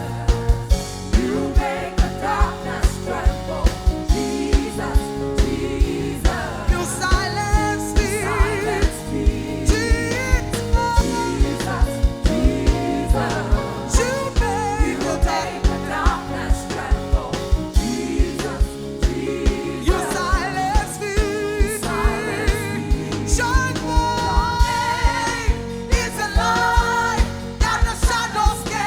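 A worship band plays with a steady drum beat under a singer holding long, wavering notes with vibrato and vocal runs.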